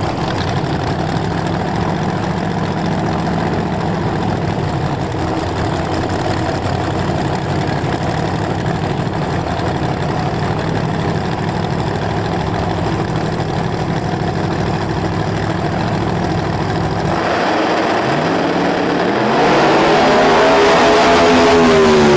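Drag-race cars' big engines idling with a steady rumble at the starting line. About 19 seconds in they launch, and the engine note gets louder and rises sharply in pitch.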